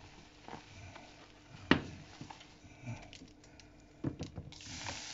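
Wire whisk tapping and scraping against a glass bowl of flour batter, with one sharp clink a little under two seconds in. Near the end, sparkling water pours from a plastic bottle into the batter with a steady fizzing hiss.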